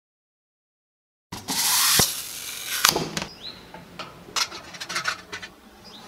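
Dead silence, then a short rush of noise and a run of light knocks, taps and rubs: a 3D-printed plastic pot being set down on a railing and handled as makeup brushes are put into it.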